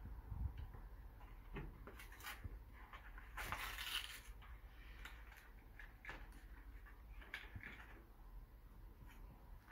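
Faint handling of plastic toy-blaster parts and cardboard packaging: scattered small clicks and knocks, with a longer scraping rustle about three and a half seconds in.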